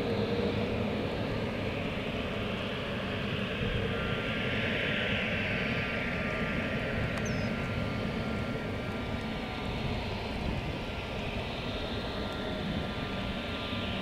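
Embraer ERJ-195's General Electric CF34 turbofan engines running, a steady rush of jet noise. A thin high whine joins about four seconds in.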